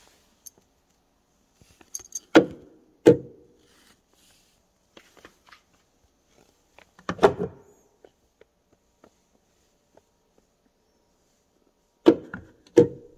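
Hyundai Santa Fe fuel filler door clacking as it is pushed shut and springs back open, sharp clacks in pairs a few seconds apart. The door will not stay latched shut.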